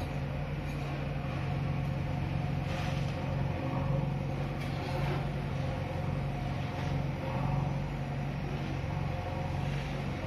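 Diesel engines of a JCB backhoe loader and a Tata tipper lorry running with a steady low hum while the loader works, with a few brief rushes of noise from crushed stone being moved.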